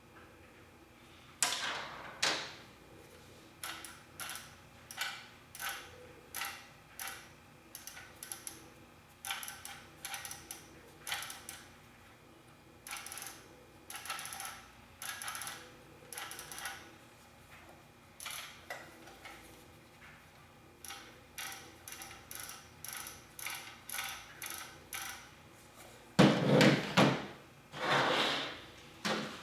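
Hard plastic and metal parts of an airsoft electric rifle being handled: a steady string of short clicks and rattles, one or two a second, with louder clattering about a second in and again near the end.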